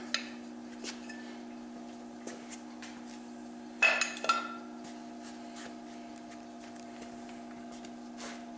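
Metal compressor parts clinking and tapping as they are handled, with two sharp ringing clinks about four seconds in, over a steady low hum.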